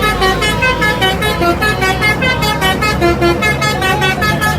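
Tourist bus's telolet basuri melody horn playing a fast tune of short, rapid notes, with the bus's engine running underneath.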